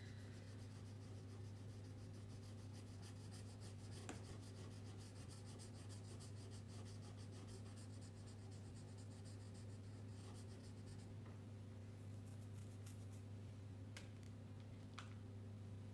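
Crayon rubbing over paper in quick back-and-forth shading strokes, faint against a steady low hum. The strokes stop about eleven seconds in, followed near the end by a couple of light clicks from the crayon box.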